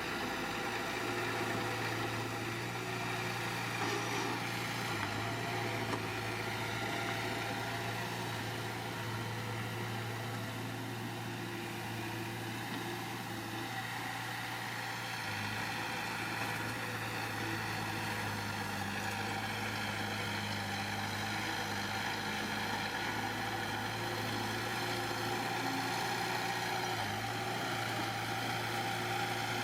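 Diesel engine of a heavy construction machine running steadily, a constant low drone with no revving or impacts.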